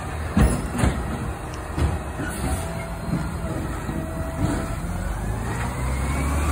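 Engine of a Waste Management recycling truck running with a steady low hum. A few sharp thumps come through, the loudest about half a second and a second in, and a faint whine rises slowly near the end.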